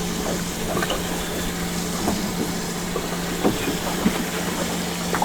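Water sloshing and splashing over a steady low motor hum aboard a fishing boat, with a few light knocks.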